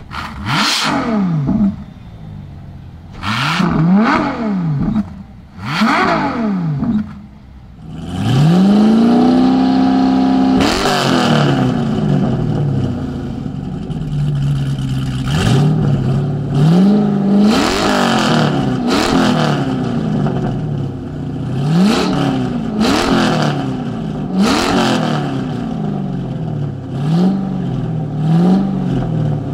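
Ferrari LaFerrari's V12 blipped sharply about three times with short drops back between them. Then a Mazzanti Evantra's engine flares up, holds a high note briefly and is revved in quick repeated blips over idle.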